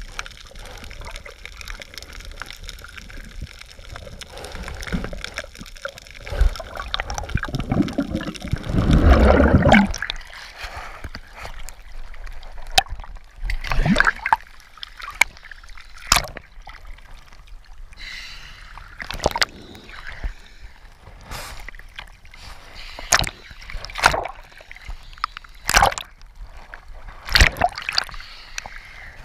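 Seawater sloshing and splashing against a camera floating half-submerged at the surface. A loud muffled rush comes about nine seconds in, followed by irregular sharp slaps of water.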